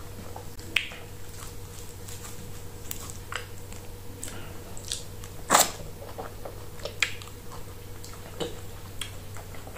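Close-up eating sounds of plantain fufu with stringy soup, eaten by hand: wet mouth smacks and chewing, with sticky squishes as fingers pinch off and dip the dough. The clicks come irregularly, with one louder smack about five and a half seconds in.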